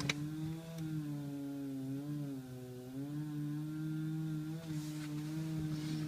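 Chainsaw running steadily while cutting into a tree trunk, its engine pitch sagging briefly about two seconds in and recovering.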